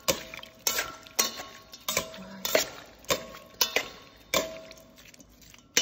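Metal tongs tossing ceviche in a stainless steel bowl: a clink of metal against the bowl about every half second, several of them leaving a short ringing tone.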